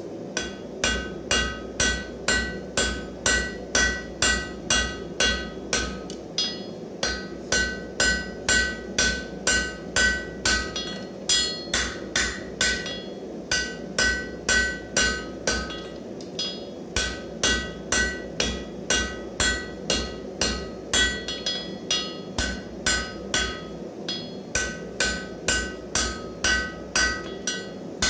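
Hand hammer striking a red-hot bar on the edge of an anvil, about two blows a second, each with a short ringing note from the anvil; the rhythm breaks off briefly a few times. The blows are isolating material over the anvil's edge.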